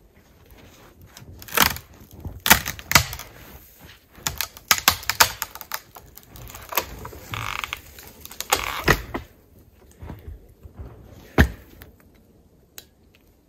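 Dry dead wood cracking and snapping by hand, an irregular run of sharp cracks as a small dead tree is broken off and its dry twigs and branches snapped away, with one last loud crack near the end.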